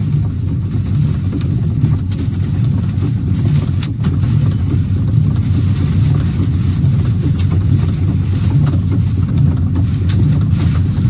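Strong tornado wind buffeting the anchored, armoured Dominator 3 storm-chase vehicle, heard from inside the cabin as a steady low rumble with a few light ticks.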